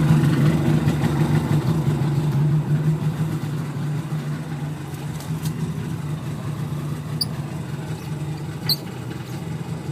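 Yamaha WaveRunner XLT two-stroke engine, freshly rebuilt with new pistons and gaskets, running steadily out of the water, slowly getting quieter over the seconds.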